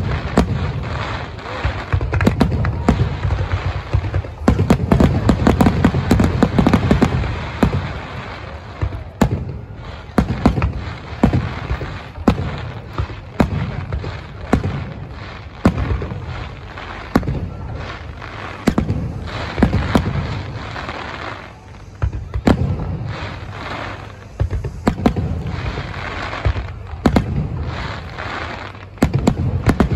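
Aerial firework shells bursting in quick succession: a dense string of sharp bangs over a continuous low rumbling echo.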